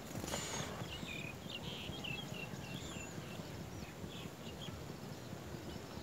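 A brief whirr of small wings just after the start, then a run of short, high chirps from nestlings begging in the nest, over a steady low rumble of background noise.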